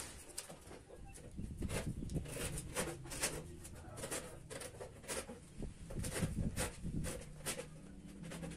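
Hand file rasping along the overhanging edge of high-pressure laminate (fórmica) to trim the excess flush, in quick repeated strokes about three a second.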